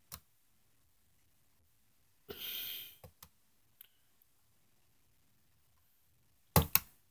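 Computer mouse clicks in a quiet room: a faint click at the start, a few faint ones around the middle, and a loud sharp double click near the end. There is a short exhale near the microphone about two and a half seconds in.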